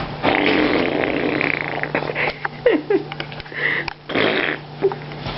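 A fart noise lasting about two seconds, then a few short squeaks and clicks.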